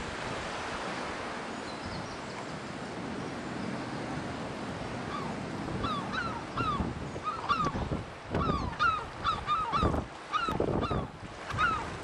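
Steady wash of wind and surf, then from about six seconds in herring gulls calling: many short yelping calls in quick succession. Loud low rumbles break in during the second half.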